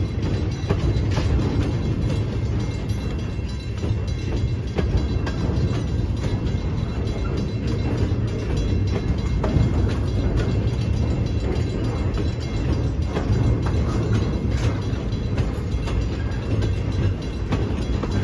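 Double-stack container train's well cars rolling past: a steady low rumble of steel wheels on rail, with scattered clicks and clanks as the wheels pass over the rail joints.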